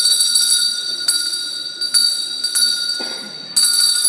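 A small metal hand bell rung repeatedly: several fresh strokes, each leaving a bright, high ringing tone that hangs on between them.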